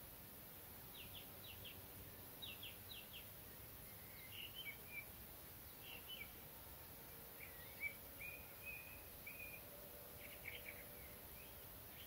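Faint songbirds in the distance: short clusters of quick chirps, then brief twittering phrases, over a steady background hiss. A faint low steady hum comes in about halfway.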